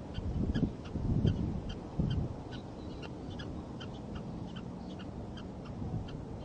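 Prairie dog barking in a steady series of short, sharp calls, about two and a half a second. Low rumbling swells in the first two seconds are the loudest sound.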